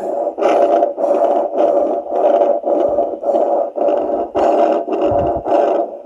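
A Facelake fetal Doppler, its probe pressed to the side of the neck, plays a loud, regular whooshing pulse, a little under two beats a second. It is the adult's own heartbeat in the neck's blood flow, not a fetal heartbeat.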